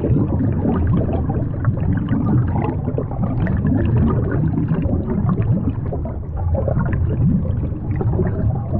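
Water bubbling steadily: a dense stream of small gurgles and pops.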